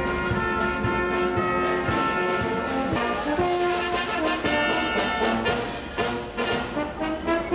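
Brass band playing a tune, with trumpets over tuba and baritone horns, in held notes that change pitch.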